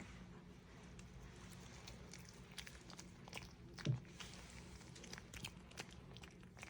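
A dog chewing and crunching food, with small crunches scattered through and one louder thump about four seconds in.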